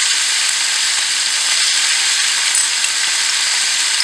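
Cauliflower florets and potato pieces frying in hot oil in a nonstick pan, giving a steady sizzle.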